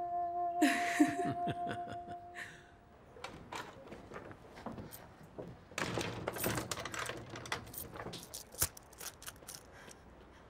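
A held music chord fading out, with a short laugh over it, then a run of clicks and knocks as a wooden front door is shut and handled, followed by light footsteps.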